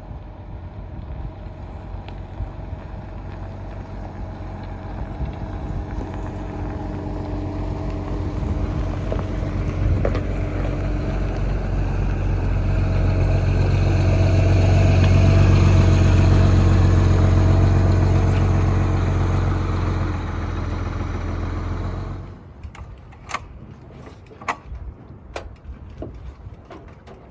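A large vehicle driving: steady engine and road noise with a low hum, growing louder to a peak midway, then dropping off abruptly near the end to a quieter background with a few sharp clicks.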